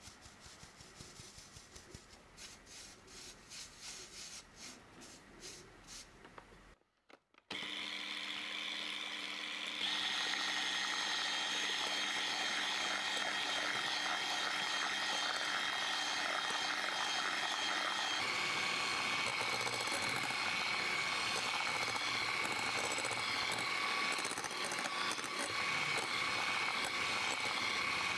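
A few seconds of light irregular tapping, then a Multimix electric hand mixer's motor starts and runs steadily, whirring as its beaters whip eggs and sugar until pale and foamy. Its tone shifts once, about two-thirds of the way through.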